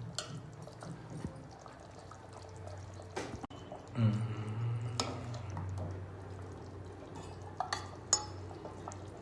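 Chicken curry being ladled from the pan into a bowl: wet pouring and dripping, with a spoon clinking and scraping against the pan and bowl several times.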